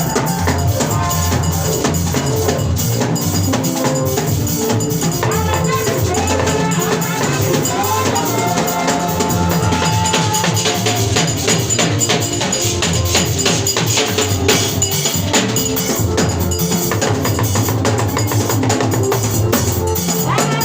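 Church worship music: a drum kit and percussion keep a steady, busy beat under a melody line.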